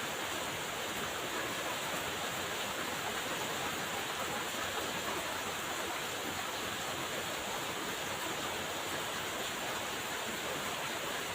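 Steady rain falling, an even hiss with no breaks or separate drops standing out.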